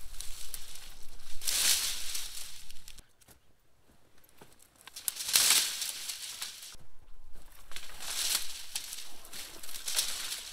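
Dry, dead plant stalks rustling and crackling as an armful is handled and dropped onto a brush pile. It comes in noisy bursts a few seconds apart, with a short quiet pause about three seconds in.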